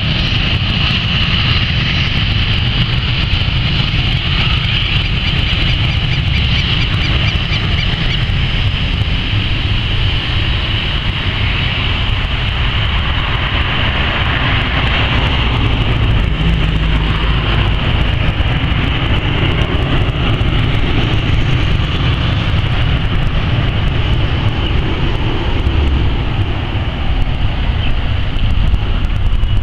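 The twin Williams FJ44-3A turbofan engines of a Cessna Citation CJ2+ business jet at takeoff power, heard from behind as it rolls, lifts off and climbs away. A deep rumble sits under a steady high whine.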